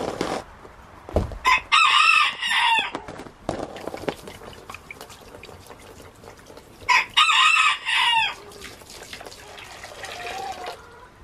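A rooster crowing twice, each crow a loud call of about a second and a half, with hens clucking softly near the end. A couple of thumps come near the start.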